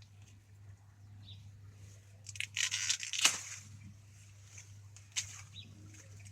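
Rustling and crackling of garden plants being handled, loudest in a burst about two and a half to three and a half seconds in, with a sharp tap about five seconds in, over a steady low hum.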